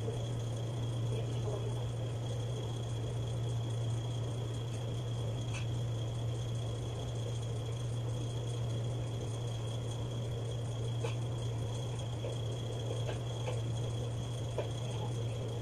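Steady low hum filling the room, with a few faint, scattered clicks from a laptop's touchpad and keys.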